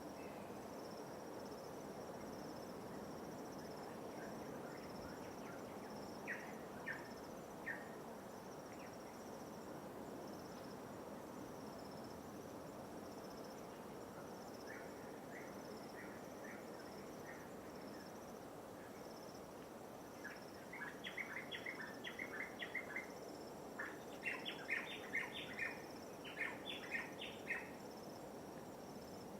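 Shoreline ambience: an insect keeps up a steady, high, pulsing trill over a soft wash of light waves. A bird calls in short runs of sharp chirps, a few about six seconds in, then faster and louder runs near the end.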